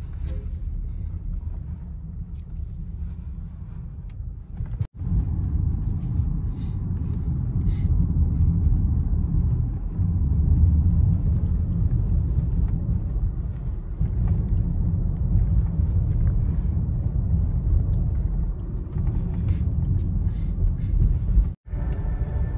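Steady low rumble, breaking off abruptly for an instant about five seconds in and again near the end.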